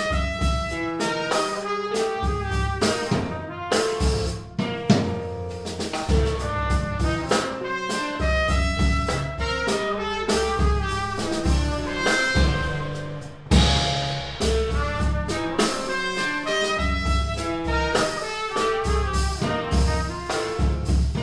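Jazz trio playing live: trumpet with guitar and drum kit, a quick run of short notes over busy drumming.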